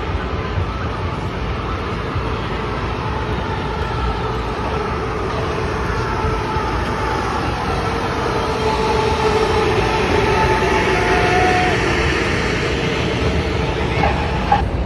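Steady city street traffic rumble, with a drawn-out whine that slowly falls in pitch and swells midway before easing off.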